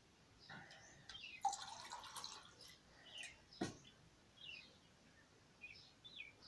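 A steel tumbler being dipped into a steel bowl of water: water splashing and metal clinking, then one sharp knock partway through. Small birds chirp faintly in the background.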